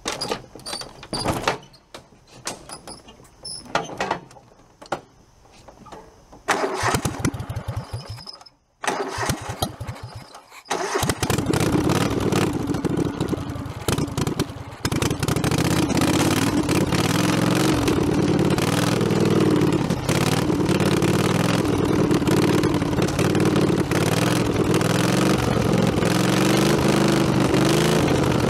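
A few knocks, then a small tractor engine is cranked by its starter in two tries about 7 seconds in and catches on the second, then runs steadily.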